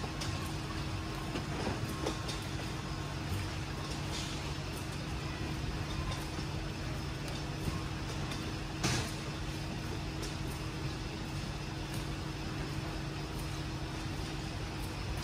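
Steady drone of a beverage packing line's machinery and conveyor, with a low hum and a few short sharp clicks and knocks, the loudest about nine seconds in.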